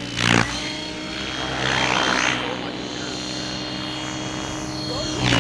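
Gaui X7 electric radio-controlled helicopter in flight: the steady hum of its rotor with a thin high whine from the motor and drive. A brief loud burst of noise comes just after the start.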